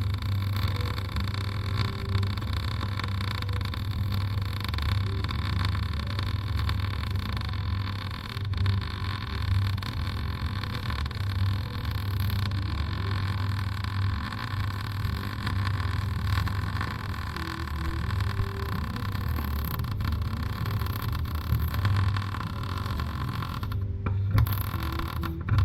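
Wire-feed (MIG) welder arc running steadily with a continuous crackling buzz, broken briefly near the end before it stops.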